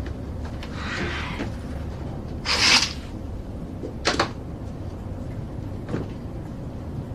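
Steady low drone of an airliner cabin, with a few short rustles and soft knocks over it; the loudest is a brief swish about two and a half seconds in, followed by a sharp click about four seconds in.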